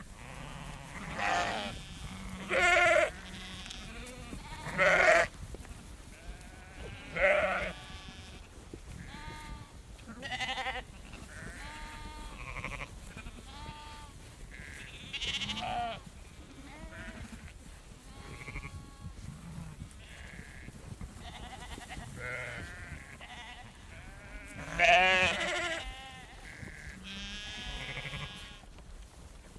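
A herd of sheep bleating close by: many calls from several animals, one after another, with loud bleats in the first seven seconds and again near the end.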